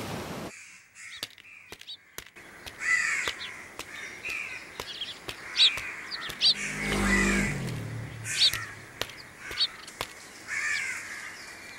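Crows cawing several times, with short high bird chirps in between and a low rumble going by about seven seconds in.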